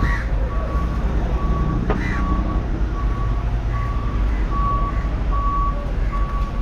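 A vehicle's reversing alarm beeping a steady single tone a little more than once a second, over the low rumble of its engine.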